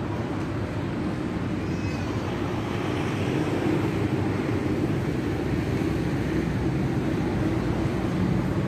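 Steady low rumble of distant engines, slowly growing a little louder, with a brief high chirp about two seconds in.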